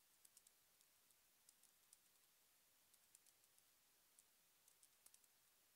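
Faint computer keyboard typing: irregular keystroke clicks in short runs, over near silence.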